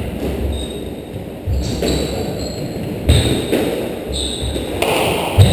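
Squash rally: the rubber ball struck by rackets and slapping off the court walls, a hollow smack about every second and a half that rings briefly in the enclosed court, with short shoe squeaks on the wooden floor between hits.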